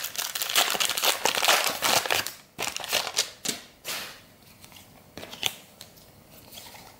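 Foil wrapper of a trading-card pack being torn open and crinkled for about two and a half seconds, then softer scattered clicks and rustles as the stack of cards is handled.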